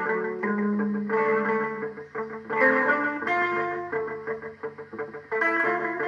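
Guitar music: a fast run of plucked notes.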